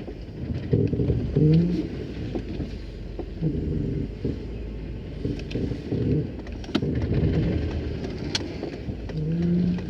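Mercedes-Benz 190E driving, heard from inside the cabin, with short pitched tones coming and going several times over the running noise and two sharp clicks near the end.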